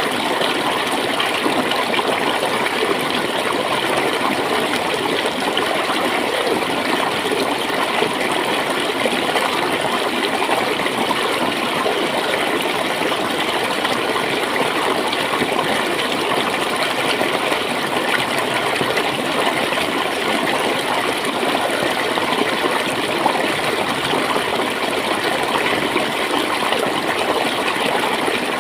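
Shallow stream of water flowing and gurgling steadily.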